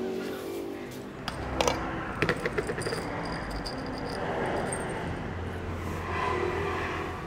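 Hard, dried wild dổi seeds rattling and clicking against a small glass jar as they are tipped out into a hand, a quick run of clicks.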